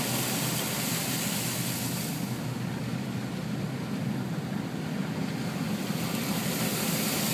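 Car driving slowly through floodwater over a road, water rushing and splashing against the car in a steady hiss. The high spray hiss thins for a few seconds in the middle, then comes back.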